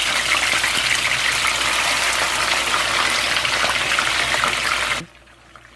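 Whole horse mackerel frying in hot oil in a pan: a dense sizzle full of fine crackling pops, which cuts off suddenly near the end.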